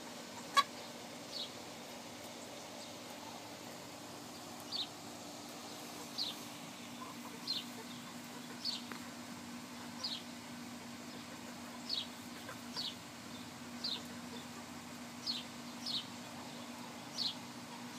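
Young hens peeping: short, high, falling peeps repeated roughly once a second, over a steady low hum. A single sharp click sounds about half a second in.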